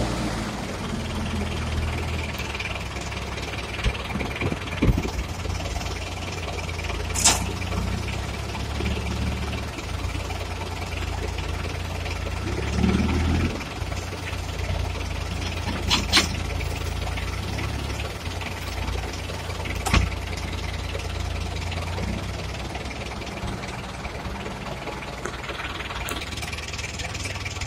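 Hidromek backhoe loader's diesel engine running steadily while its bucket tips manure into a trailer, with a few sharp knocks and a brief lift in engine note partway through.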